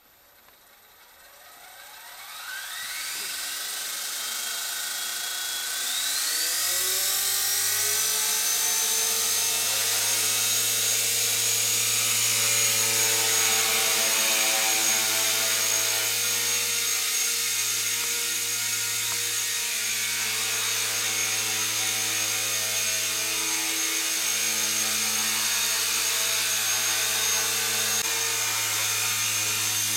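Align T-Rex 250 electric RC helicopter spooling up: motor and rotor whine rise in pitch and grow louder over the first several seconds, then settle into a steady high whine over the rotor's hum as it hovers and flies.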